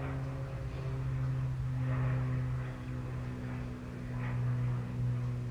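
Steady low hum, with the soft hiss of a pot of small potatoes simmering in water.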